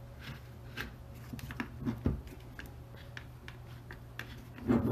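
Small clicks, taps and rubbing of a beetleweight combat robot's chassis and parts being handled on a tabletop during disassembly, with one louder knock about two seconds in and a louder rustle near the end, over a steady low hum.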